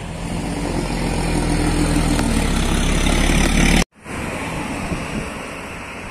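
Road traffic passing close: car engine and tyre noise growing steadily louder as a vehicle approaches, cut off abruptly about four seconds in. It is followed by quieter engine noise from approaching traffic.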